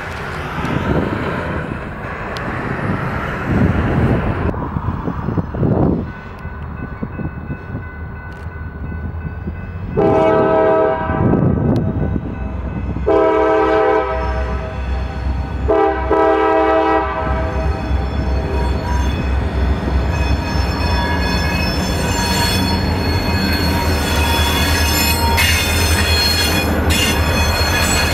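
Road truck passing first, then a diesel locomotive's air horn sounding the grade-crossing signal: two long blasts, a shorter one, and a final long blast held as the locomotive reaches the crossing, over the low rumble of its diesel engine.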